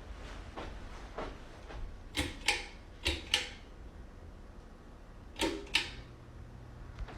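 Sharp mechanical clicks in three quick pairs, typical of a switch being flicked to test a newly installed ceiling fan light. A faint low hum sets in near the end.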